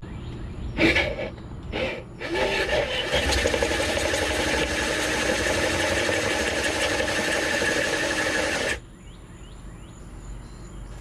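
Power drill driving a step bit through the thick plywood and fiberglass of a boat console to widen a hole. Two short bursts, then a steady run of about six seconds that stops abruptly.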